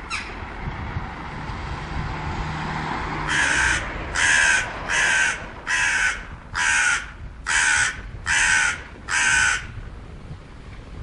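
A crow cawing eight times in a steady series, about one harsh caw every 0.8 seconds, with wind noise underneath.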